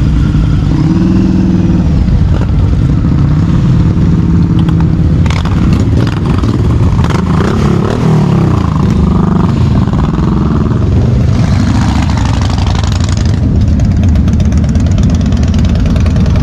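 Motorcycle engines running loudly in a crowd of bikes, with throttles revved so the pitch rises and falls several times through the middle.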